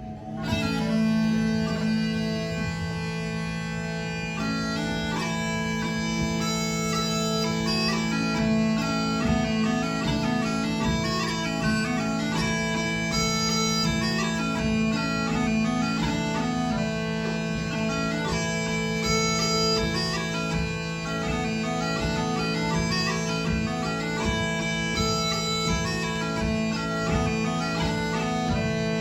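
Scottish smallpipes striking up and playing a Galician tune: a melody on the chanter over steady, continuous drones.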